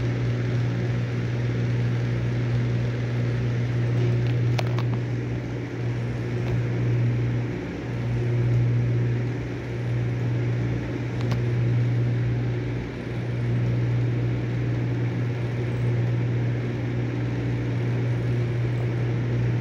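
Steady low hum that swells and fades slightly, with no music or speech, during the silent copyright-warning stretch of a VHS tape played on a TV. A couple of faint clicks are heard.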